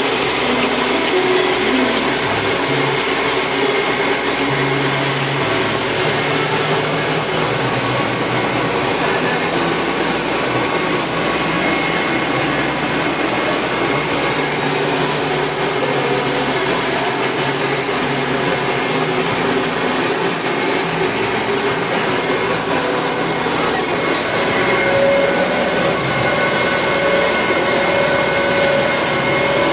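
Tractor running steadily at work: an even engine and machinery drone with several faint steady whining tones over it.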